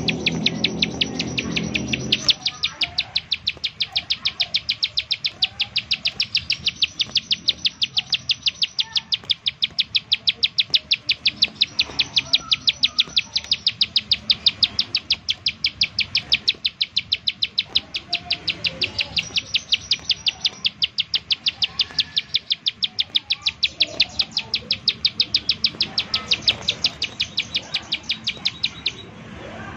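Plain prinia (ciblek sawah) calling in the rapid 'nembak-nembak' style: a long, even string of sharp, high notes at about three to four a second, with a short break near the end. A low hum sounds under it for the first two seconds.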